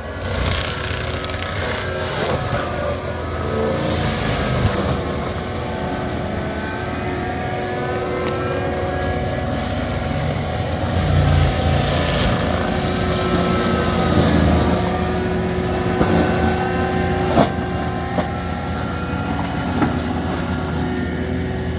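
Caterpillar skid steer with a brush mulcher running steadily, its engine and mulcher pitch drifting up and down as it works through brush, with a few sharp snaps, the loudest about seventeen seconds in.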